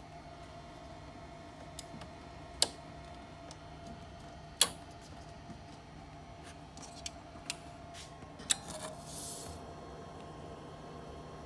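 Faint steady hum from a powered-up TEAC A-4070G reel-to-reel tape deck, with scattered sharp clicks, two louder ones about two seconds apart in the first half, and a brief hiss late on.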